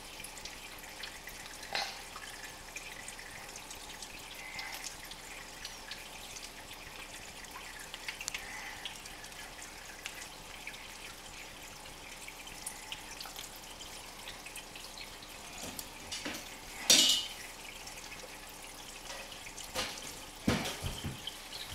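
Aquarium water trickling and dripping steadily at the surface, with a brief loud noise about 17 seconds in and a few smaller ones near the end.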